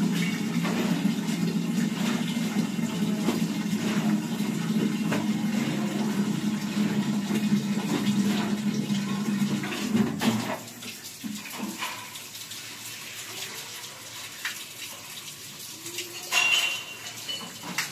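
Water running or pouring steadily, then stopping about ten seconds in, after which only scattered knocks remain. A sharper clatter comes near the end.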